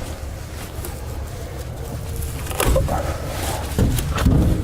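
Footsteps and a few short knocks over a steady low rumble, clustered in the second half.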